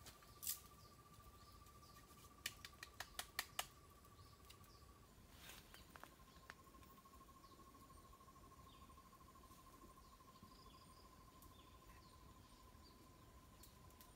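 Faint, steady insect trill, cricket-like, holding one high pitch with a brief break about five seconds in. A quick run of sharp clicks comes about three seconds in.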